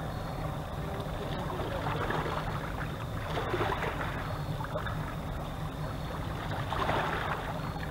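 River water lapping and splashing against the rocks of the bank, swelling a few times, over a steady low rumble.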